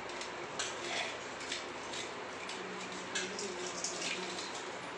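Handling noises as plastic clothespins are unclipped from a cement-filled glove in a steel bowl: a few short, scattered clicks and rustles over a steady hiss.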